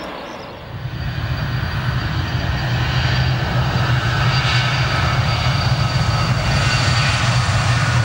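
Jet airliner engines at takeoff power: a loud, steady rumble with a high whine, coming in about a second in.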